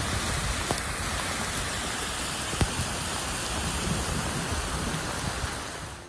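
Heavy rain falling on a flooded lane and running muddy water: a steady hiss with a few sharp clicks of drops, fading out near the end.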